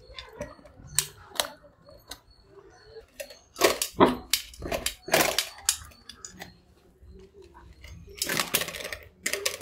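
Labrador puppy eating rice from a steel bowl: irregular clicks and clatters of mouth and teeth against the metal, with louder bursts of eating about three to five seconds in and again near the end.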